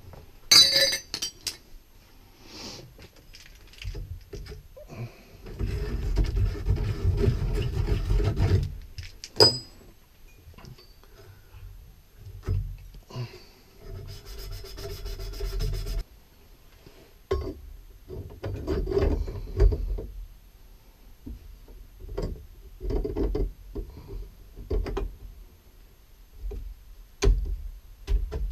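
Copper pipe and fittings being handled and fitted together: scattered knocks and clinks, with two longer stretches of rubbing and scraping.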